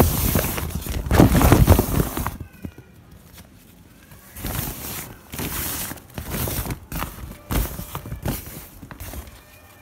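Rustling and crinkling of a fabric pop-up laundry bag being handled, loudest in the first two seconds. There is a short lull, then irregular bursts of rustling as the bag and its straps are moved about.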